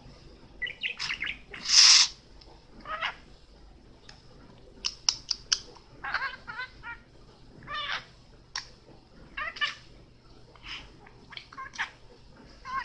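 Pet budgerigar chattering in short warbled chirps and clicks, on and off. About two seconds in comes a brief, loud rush of noise, the loudest sound here.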